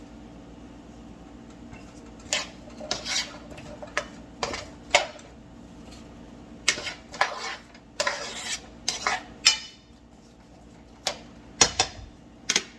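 Cooking utensil clinking and scraping against a frying pan in short, irregular strokes as vegetables are stirred to soften in a little oil.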